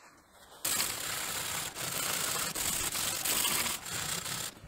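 Hand wire brush scrubbing a piece of steel rebar clamped in a bench vise, a dense scratchy rasp of quick back-and-forth strokes that starts about half a second in, pauses briefly twice, and stops just before the end.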